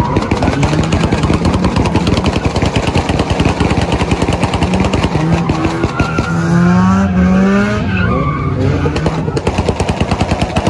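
A car drifting in circles: its engine is held at high revs with a fast stuttering rattle while the tyres skid and squeal.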